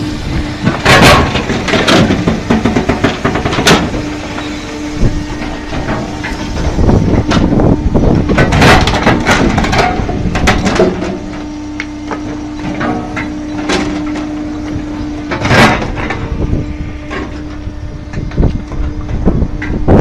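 GROWI firewood processor running with a steady hum, split firewood pieces clattering and knocking irregularly as they tumble along its conveyors.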